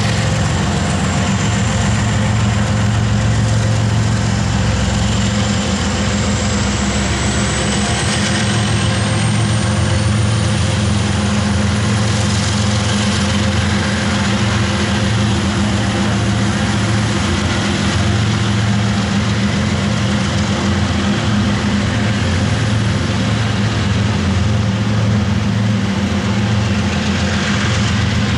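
Freight train rolling past: a string of loaded coal hopper cars running by on the rails over a steady low diesel-locomotive drone. A faint high whine rises slightly in pitch about eight seconds in.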